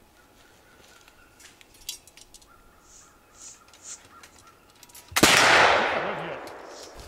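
Black-powder muzzleloading rifle firing once about five seconds in: a sharp blast that rumbles and fades away over about two seconds.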